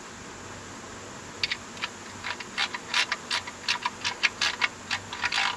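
Quick, irregular metallic clicking that starts about a second and a half in, from work on the new oil pan drain plug as it is turned into the repaired thread.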